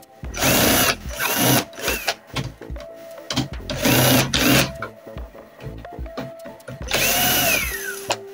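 Cordless power screwdriver running in several short bursts, each spinning up and winding down in pitch, as it backs screws out of a printer's fuser unit.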